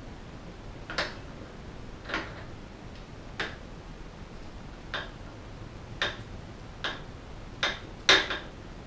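Sharp mechanical clicks from the bicycle's handlebar parts being worked by hand. There are about eight, roughly a second apart, coming closer together near the end, where the loudest is a double click.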